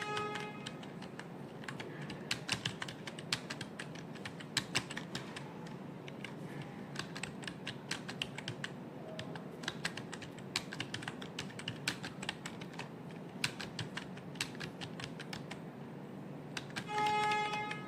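Typing on a computer keyboard: irregular keystroke clicks at an uneven pace, several a second with short pauses between runs.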